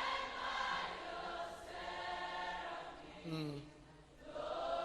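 Group of worship singers holding long notes in a slow chant. A man's voice comes in briefly a little past three seconds, falling in pitch, and the singing dips and then swells again near the end.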